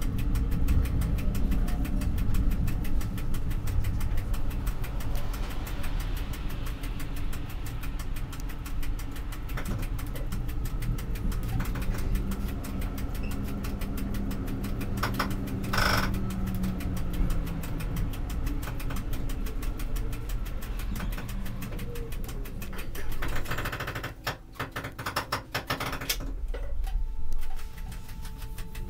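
Tram running along street track, heard from the driver's cab: a steady low rumble of wheels on rails and the traction motors, with a brief sharp sound about halfway through.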